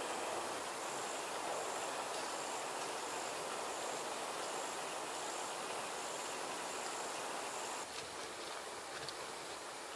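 A high-pitched insect call pulsing evenly about twice a second over a steady rushing background noise. The pulsing stops and the background drops a little near the end.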